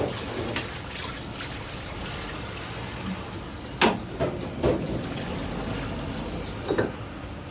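Water running and sloshing in a steel wok as it is rinsed and scrubbed with a bamboo wok brush, over a steady rushing background. Several metal clanks of the wok knocking on the burner, the loudest about four seconds in and another near the end.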